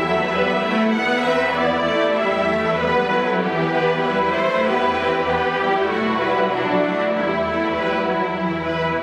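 Student string orchestra playing: violins, violas, cellos and double basses together in full, sustained chords at a steady level.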